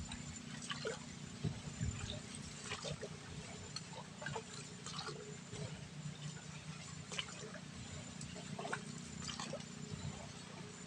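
Water dripping and trickling in small, irregularly spaced drops over a steady low hum.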